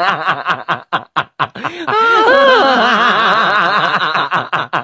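A person's high-pitched laughter in quick choppy bursts, with a longer wavering laugh about two seconds in. It cuts off suddenly at the end.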